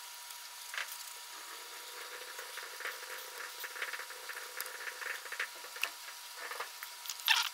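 Small clicks and scratchy handling sounds as gloved hands fit the carburetor and throttle linkage back onto a Stihl MS170 chainsaw, with a louder brief scrape near the end.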